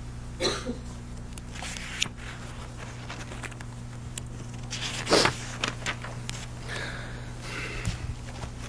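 Room tone of an old courtroom recording: a steady low hum with a few short rustles and breath-like noises. The loudest is a brief noisy burst about five seconds in.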